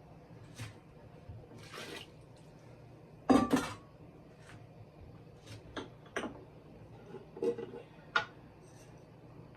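Kitchen clatter: pots, containers and utensils knocking and clinking in short separate bursts, the loudest a double clatter about three seconds in.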